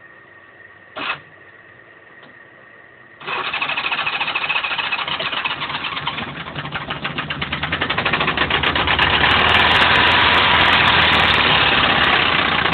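Honda GL1100 Gold Wing flat-four engine catching a few seconds in from a full-choke cold start and running with a rapid, even knocking, getting louder partway through. The knock is the unexplained engine fault that has kept the bike parked.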